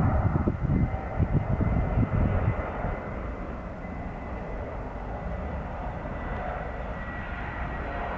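Airliner engines at an airport runway: a loud, uneven rumble that drops off about two and a half seconds in, leaving a steady engine noise with a thin high tone.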